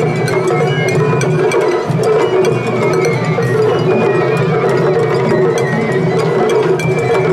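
Kawagoe festival hayashi music from the floats: a high bamboo flute (shinobue) melody over rapid taiko drum and wood-block-like strikes. It is the float ensembles' hayashi played against each other in a hikkawase face-off.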